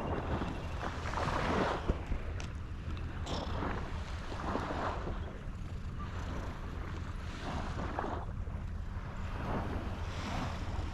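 Wind buffeting the microphone with a steady low rumble, over sea water washing against a breakwater in irregular swells every second or two.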